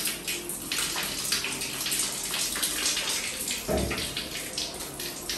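Running water splashing onto a wet dog's coat and into a stainless-steel dog-wash tub as the dog is rinsed, with one short low knock about two-thirds of the way through.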